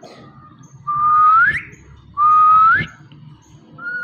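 Indian ringneck parakeet whistling: two clear whistles, each under a second, that hold a tone and then sweep upward at the end. A third starts near the end.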